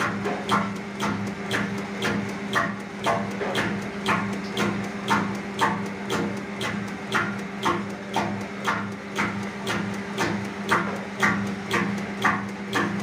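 Hydraulic servo linear actuator rig running: a steady hum with a sharp, regular knock about twice a second.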